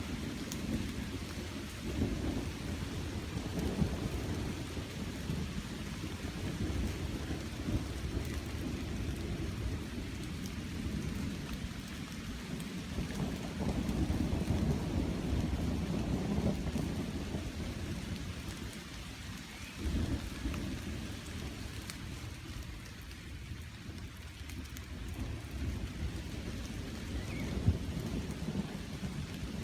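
Thunderstorm: steady rain with rolling thunder, low rumbles that swell and fade, one rising suddenly about two-thirds of the way through. There is a brief sharp crack near the end.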